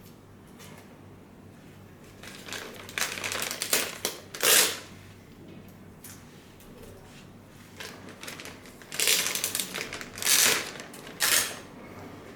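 Packaging being handled as a car stereo head unit is unpacked from its box: irregular bursts of rustling and scraping, loudest about four and a half seconds in and again in several bursts near the end.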